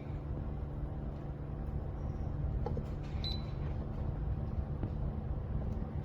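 Small portable personal air cooler fan running with a steady low hum, with a couple of faint clicks around the middle as its speed buttons are pressed.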